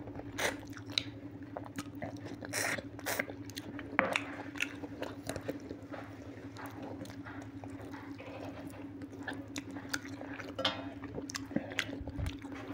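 A man eating mutton curry with rice by hand, close to the microphone: chewing, with wet mouth smacks and clicks coming at an uneven pace.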